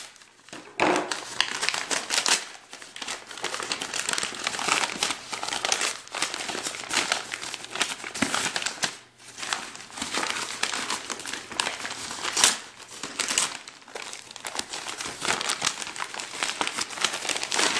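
Paper wrapping being unfolded and pulled off a package, crinkling and rustling in irregular bursts, with one sharper, louder crackle about twelve seconds in.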